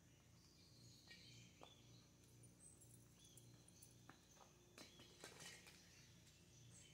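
Near silence: faint outdoor background with a steady, faint high tone and a few soft clicks and rustles about five seconds in.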